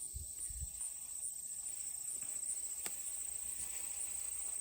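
Late-summer insect chorus of crickets or katydids: a steady, high, pulsing trill. A single sharp click about three seconds in, and a few low thumps near the start.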